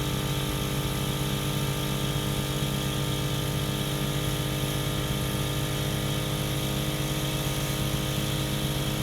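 Smittybilt 2781 12-volt portable air compressor (5.65 CFM) running with a steady, even hum as it inflates a 40-inch tire, nearing about 8 psi.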